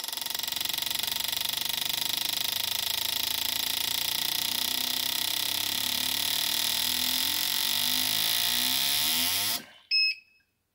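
Fuel injectors in an Autool CT160 injector cleaner and tester firing in rapid pulses during an acceleration test, a steady buzzing chatter. They are mounted upside down to back-flush a clogged injector. The chatter cuts off suddenly near the end, followed by one short beep from the machine.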